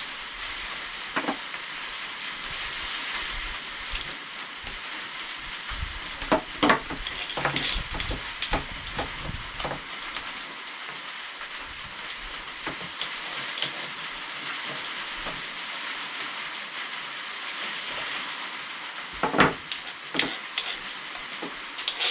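Clicks and knocks of a DWT angle grinder's housing and parts being handled and fitted together by hand during reassembly after a brush change, the grinder not running. The clicks come in a cluster around a third of the way in, with the loudest knock near the end, over a steady hiss.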